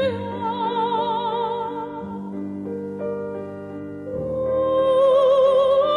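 Slow background music: a melody of long held notes with vibrato over sustained chords, growing louder about two-thirds of the way through.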